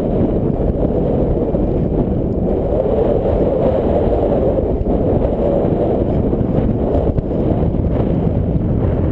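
Strong wind buffeting the microphone: a loud, steady, rumbling roar.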